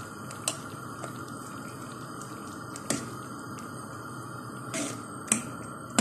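A spoon stirring thick fava-bean purée in an aluminium pot, with a handful of short sharp clicks as the spoon knocks against the pot.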